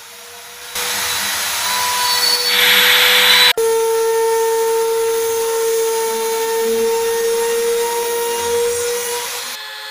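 Handheld trimmer router running at speed and cutting a groove through the HPL laminate into the plywood of a door: a steady high whine over the hiss of cutting. It starts about a second in, breaks off for an instant at about three and a half seconds, and drops away just before the end.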